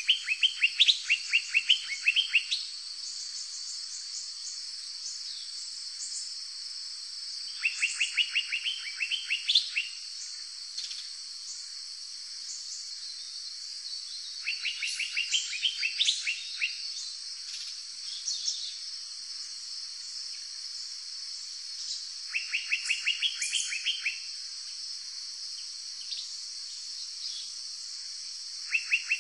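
Forest ambience: a bird repeatedly sings a fast run of sharp, evenly spaced notes lasting a couple of seconds, coming back about every seven seconds, over a steady high-pitched insect drone.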